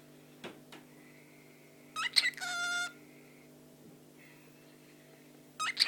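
Cockatiel mimicking a telephone: a short rising chirp about two seconds in, then a steady beep-like electronic tone lasting about half a second.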